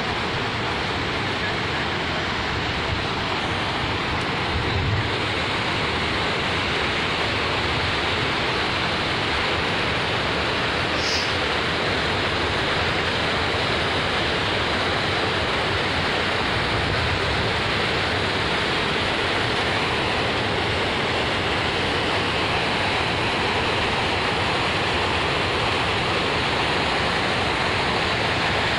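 River water pouring over a low dam, a steady rushing whitewater roar.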